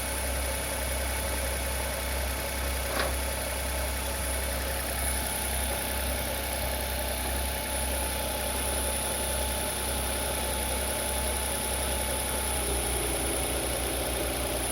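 Nissan Note e-POWER's petrol generator engine running steadily, heard with the bonnet open, with a single sharp click about three seconds in. Near the end the low throb quickens as the engine speed changes.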